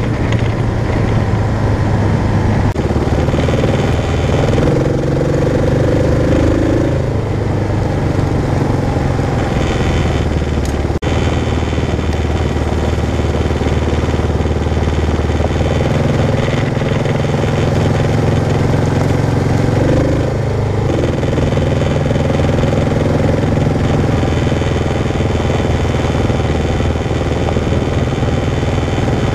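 Kawasaki KLR650 single-cylinder four-stroke engine running under way on a dirt road, its note shifting down and back up a few times as the throttle changes.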